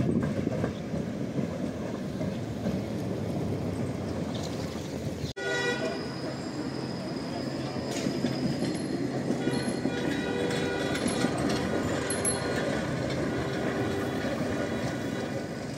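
Trams running along street track: a steady rumble of wheels and running gear. It breaks off abruptly about five seconds in and picks up again from a modern articulated low-floor tram, now with a steady whine over the rumble.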